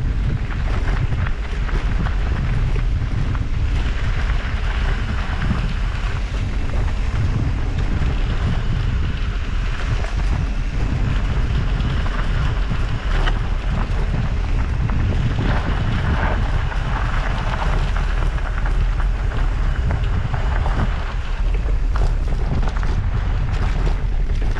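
Wind buffeting the microphone with a steady low rumble, over the rolling crunch and rattle of mountain-bike tyres on a dry dirt singletrack.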